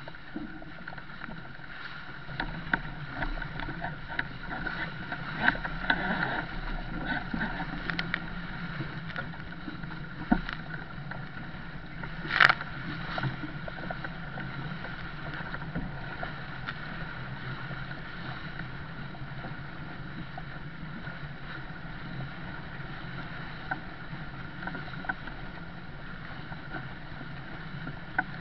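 Water rushing and splashing along the hull of a heeled sailing yacht driving through choppy waves, with wind noise. There are scattered knocks and spray hits, the loudest a sharp smack about twelve seconds in.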